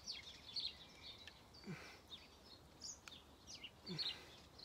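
Small birds singing faintly: a steady run of short high chirps and quick falling whistles, with two brief low falling sounds about a third of the way in and near the end.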